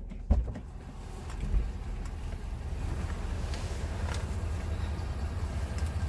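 Ford Super Duty pickup's engine idling, heard from inside the cabin as a steady low rumble. There are two knocks, about a third of a second and a second and a half in, and a few faint clicks later.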